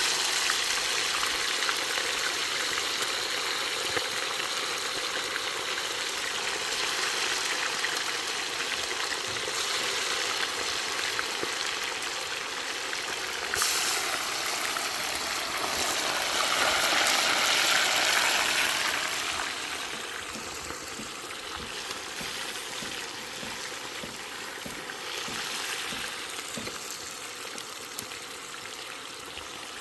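Seasoned chicken frying in a pot: a steady sizzle that swells louder for several seconds about halfway through.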